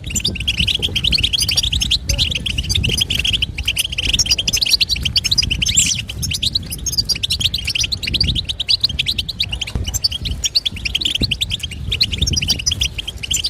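European goldfinch twittering: fast, continuous runs of short chirping notes with brief pauses, over a steady low rumble.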